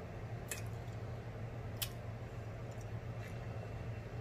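Close-miked chewing with wet mouth and lip smacks, about four sharp clicks over a few seconds, over a steady low hum.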